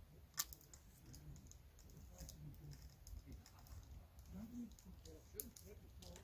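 Telescopic antenna pole being pushed up by hand, its sections clicking and knocking as they slide out. There are a few sharp clicks, the loudest about half a second in and two more near the end.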